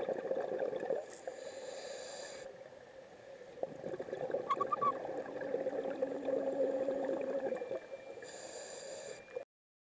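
Scuba diver breathing through a regulator, heard underwater: two rounds of a bubbling exhalation followed by a high hissing inhalation. The sound cuts off abruptly near the end.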